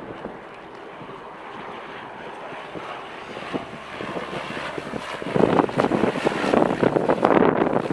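Strong gusty wind buffeting the microphone over the steady noise of jet aircraft at the airport. The wind noise swells and gets much louder and choppier a little past the midpoint.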